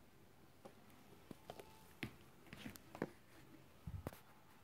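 Near silence, broken by faint scattered clicks and rustles as the recording device is handled and moved. A slightly louder cluster of clicks comes about four seconds in.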